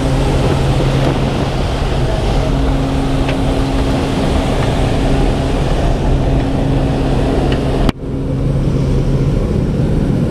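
Propeller aircraft engine droning in the cabin of a skydiving plane, a steady low hum under wind rushing in through the open jump door. The sound drops out sharply for a moment about eight seconds in, and after that the engine hum fades under the wind noise.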